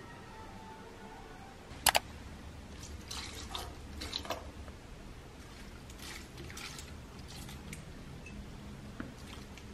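Water poured from a glass pitcher into potted houseplants, trickling and splashing onto the soil in several short pours. A sharp double knock about two seconds in is the loudest sound.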